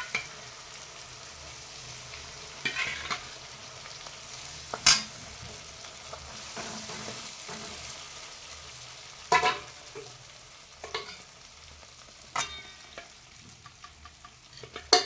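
Steel ladle stirring dal into a hot tempering in a steel kadhai: a steady sizzle, with a handful of sharp scrapes and knocks of metal on the pan, the loudest about five seconds in.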